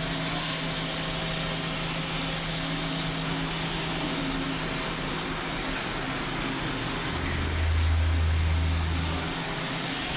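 Engine running steadily, with a louder low hum that swells for about two seconds near the end.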